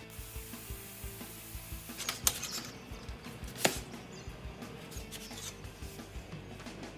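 Quiet background music with a few sharp clicks and taps of work on metal, the two loudest about two and a half and three and a half seconds in, and a faint hiss during the first two seconds.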